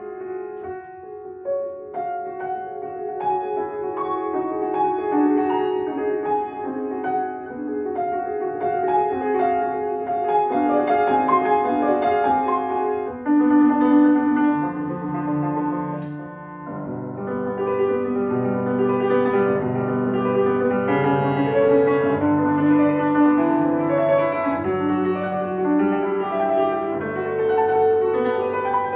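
Solo piano playing classical music: ringing chords and moving melodic lines. It eases to a brief quieter moment about halfway through, then builds again.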